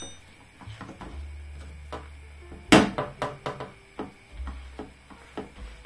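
Light knocks and clicks of a frying pan shifting on a gas-stove grate as a tortilla is pressed down into it by hand. One sharp knock about three seconds in is the loudest, followed by a few lighter taps.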